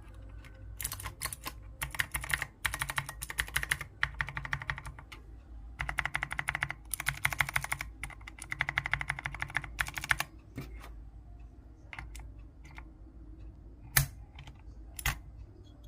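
Clicky blue-switch mechanical keyboard typed on fast in several bursts of rapid keystrokes. After that come a few scattered single key presses, with two louder single clicks near the end.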